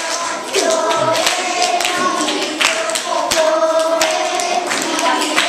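A group of children singing together in unison, holding long notes, with sharp percussive hits landing among the singing.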